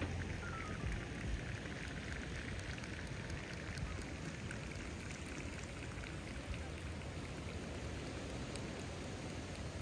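Steady, even noise like surf on a beach, with faint scattered crackles from distant fireworks.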